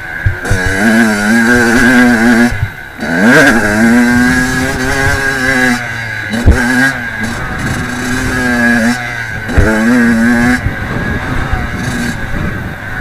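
Kawasaki KX85 two-stroke dirt bike engine revving hard and falling back over and over as it is ridden round a motocross track, the throttle shutting off and reopening every few seconds. There are a couple of short thuds along the way.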